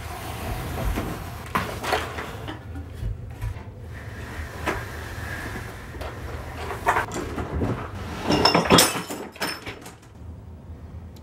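Knocks and scrapes as a wooden dresser is pulled away from a wall and things are moved about on it. About three-quarters of the way through comes a louder crash with a brief high ring: a ceramic mug falling and breaking.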